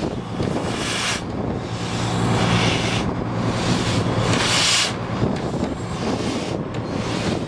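NZR Jb class steam locomotive moving slowly, heard from on board, with a steady low hum under irregular bursts of hiss and wind on the microphone.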